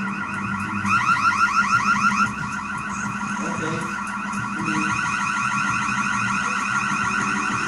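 An electronic alarm of short rising sweeps repeating about eight times a second, loudest for about a second and a half shortly after the start and then going on more quietly.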